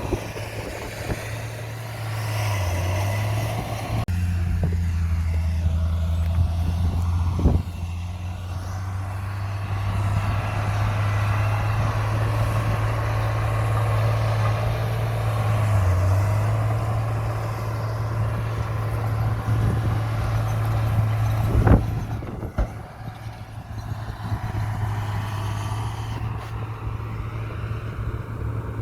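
Heavy diesel earthmoving machinery running steadily, its engine note rising under load a few seconds in. Two sharp clanks come, one about a quarter of the way in and one about three quarters in.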